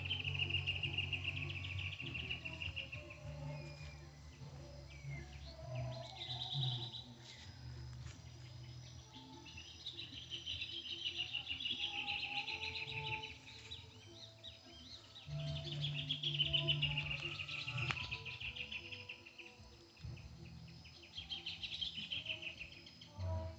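High, finely pulsed chirring trills from riverside wildlife, each two to three seconds long, repeating about five times, over a low steady rumble.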